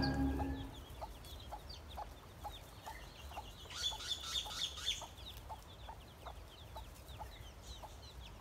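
Mother hen clucking softly and steadily, about two clucks a second, while her chicks peep with short, falling high chirps. The peeping grows busier for a moment about four to five seconds in.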